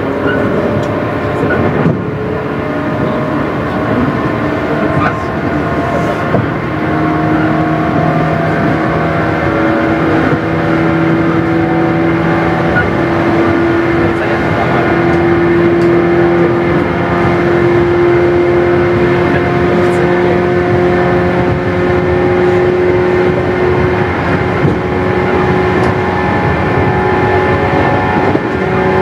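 JR 117 series 100-subseries electric train running, heard from inside the passenger car: the whine of its DC traction motors and gears over the rumble of the wheels. The whine rises slightly in pitch over the first half, then holds steady.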